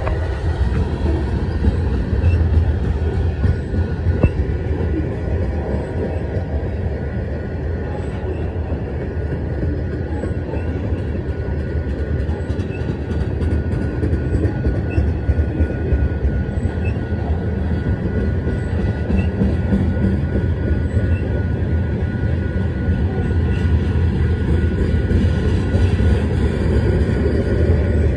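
Freight cars of a Canadian National train (covered hoppers and tank cars) rolling past close by: a steady rumble of steel wheels on the rails, with a thin high steady tone held above it.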